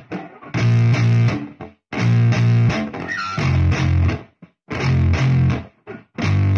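Background music: distorted electric guitar and bass playing heavy chords in short stop-start bursts, with brief silences between them.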